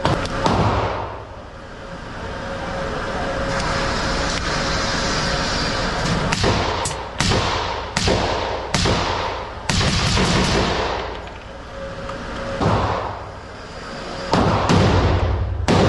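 Gunfire: a string of sharp, irregularly spaced shots, each with a ringing tail, bunched together about halfway through and picking up again near the end.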